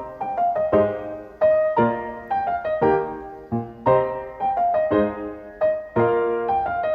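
Background piano music: a gentle melody of struck notes.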